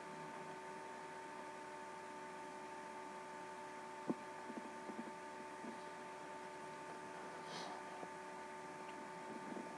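Faint steady electrical hum with a few thin steady tones, with one sharp faint click about four seconds in and a few softer ticks after it.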